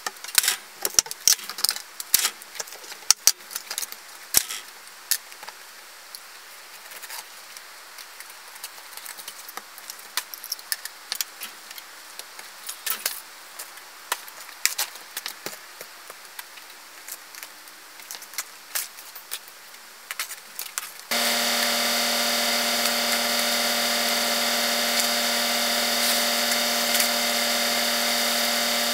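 Old black wall sheathing crackling and tearing as it is pulled off a timber wall by hand, with scattered knocks and rattles. About two thirds of the way through, a loud, steady machine hum made of several even tones starts abruptly and keeps going.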